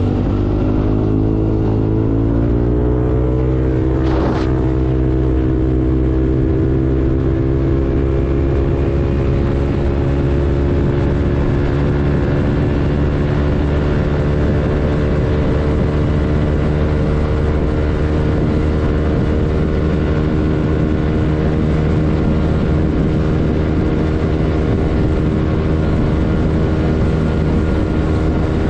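Yamaha Aerox 155 scooter's single-cylinder four-stroke engine running through a JVT V3 aftermarket exhaust, cutting in abruptly. Its note rises over the first two seconds, then holds steady, with a short click about four seconds in.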